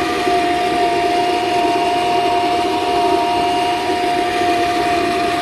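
Electric blender running steadily, its motor holding one constant pitch as it liquefies boiled tomatoes into a smooth purée.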